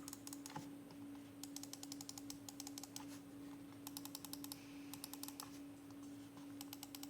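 Logitech Pro X Superlight 2 gaming mouse buttons clicked rapidly, about ten clicks a second, in several bursts with short pauses between. A steady low hum runs underneath.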